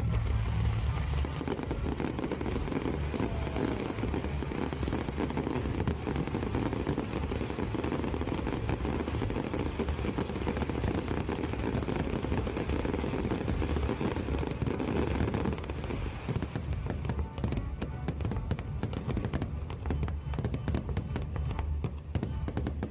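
Fireworks display: a dense, continuous run of bursts and crackling with a deep rumble, thinning to separate sharp pops in the last several seconds, heard over music.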